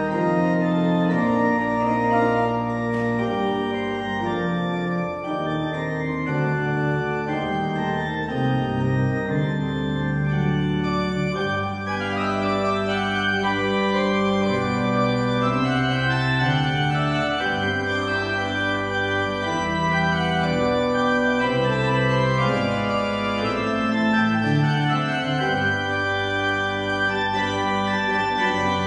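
Pipe organ playing slow, held chords that change every second or two.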